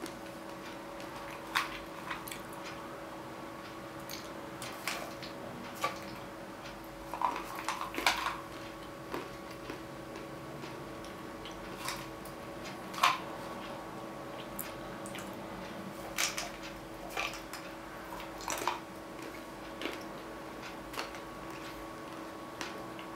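Salted peanuts crunching between the teeth while being chewed with the mouth closed: irregular sharp cracks and crackles, loudest about eight and thirteen seconds in, over a steady hum.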